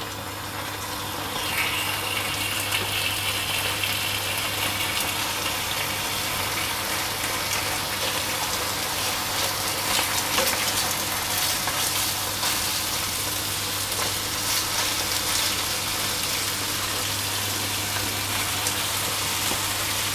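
Chicken thigh pieces sizzling in hot oil in a casserole as more pieces are laid into the pan; the sizzle swells about a second and a half in, then holds steady with scattered crackles.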